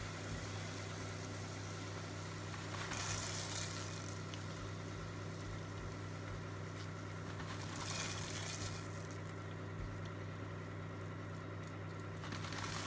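Hot melted butter and sugar syrup sizzling and bubbling in a saucepan as oats are stirred through it with a silicone spatula, the stirring swelling louder about three and eight seconds in. A steady low hum runs underneath.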